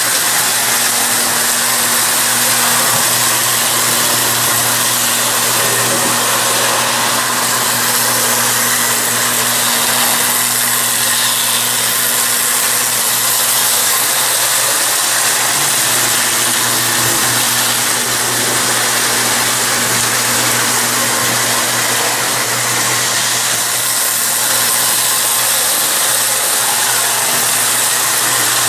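Marx 333 die-cast toy steam locomotive running steadily around tinplate track with its passenger cars, a continuous whir and rattle over a steady low hum.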